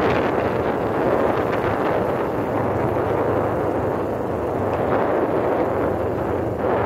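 Steady wind rumble on the microphone, mixed with the noise of a moving vehicle travelling along the road.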